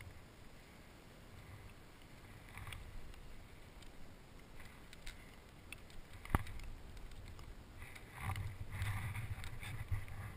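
Gusts of wind on the camera's microphone with light handling rustle of the paraglider gear, swelling for a couple of seconds near the end, and one sharp click a little after six seconds in.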